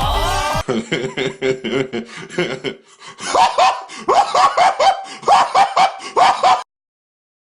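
Music cuts off under a second in, giving way to a person laughing in quick repeated bursts, about five a second at its height, which stop abruptly a second before the end.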